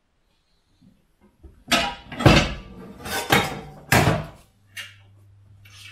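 Metal pans clattering and knocking against each other as they are pulled from a kitchen drawer: several loud, ringing clangs, one after another. A low steady hum starts a little over two-thirds of the way in.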